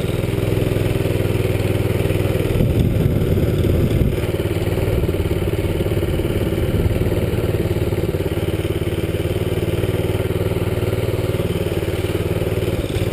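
Minibike engine running steadily under way, its speed wavering briefly about three seconds in.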